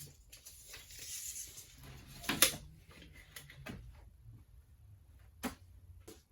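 A few scattered knocks and clicks, the loudest about two and a half seconds in and another about five and a half seconds in, with a brief soft rustle around a second in.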